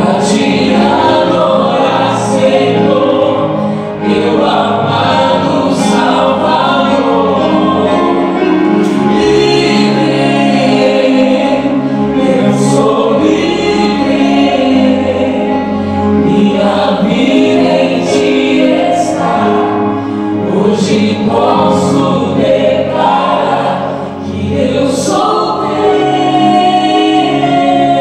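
A choir and band performing a Christian worship song, with voices singing together in sustained lines over the accompaniment.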